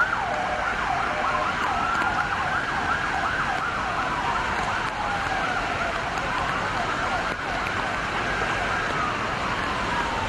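Several emergency vehicle sirens wailing at once, their rising and falling tones overlapping, over a steady background rush of noise.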